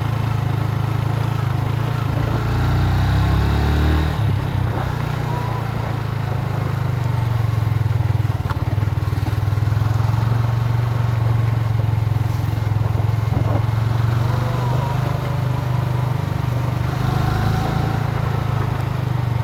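Motorcycle engine running steadily while riding, its pitch rising between two and four seconds in, then dropping back.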